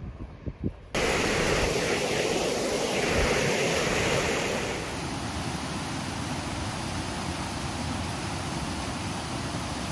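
Mountain river rushing through a rocky gorge, a steady noise of fast water. About a second in it starts abruptly, and it turns a little quieter about five seconds in.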